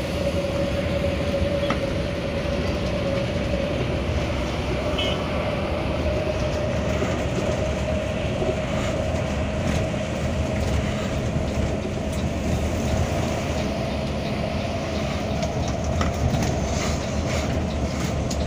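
Intercity bus running on the highway, heard from inside the cabin: a steady engine and road drone with a whine that rises slowly in pitch as it goes.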